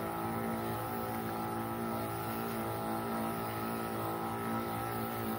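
Motorised crop sprayer's pressure pump running at a steady pitch, with the hiss of fine mist from the lance nozzle as potato plants are sprayed against blight.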